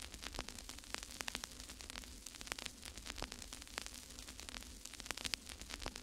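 Faint crackle: irregular sharp clicks over a steady hiss and a low hum.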